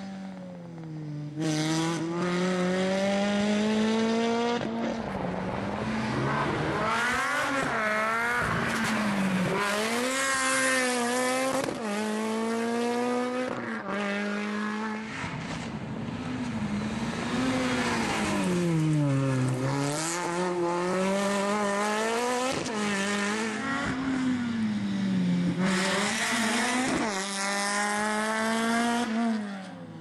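Rally car engine driven hard, its revs climbing and dropping over and over as it shifts through the gears.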